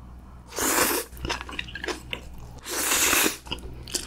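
Close-miked eating: two long slurps of spicy stir-fried instant noodles, about two seconds apart, with small wet chewing clicks between and after them.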